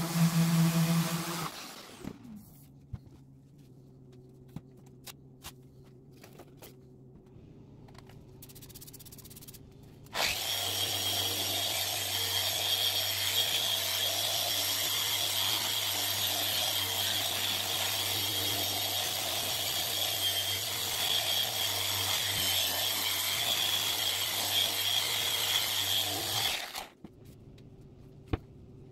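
Random orbital sander running on a plexiglass (acrylic) sheet. It stops about two seconds in, and a few light clicks follow. About ten seconds in it starts again, running steadily with a high whine over the sanding noise, and it cuts off near the end.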